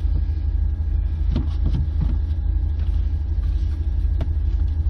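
Steady low rumble, with a few light knocks and clicks: one a little over a second in, one around two seconds and one near the end.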